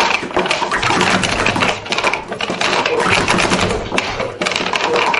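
Plastic sport-stacking cups clattering in a rapid, unbroken run of clicks as they are slid, stacked and collapsed into pyramids on stacking mats.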